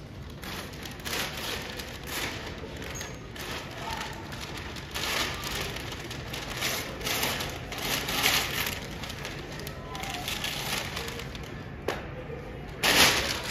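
Wrapping paper being torn and crumpled by hand as a large wrapped gift is opened: a run of irregular rips and rustles, with a louder burst near the end.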